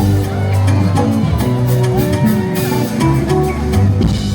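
Loud live band music with a steady bass line, drums and guitar, between sung lines of the song.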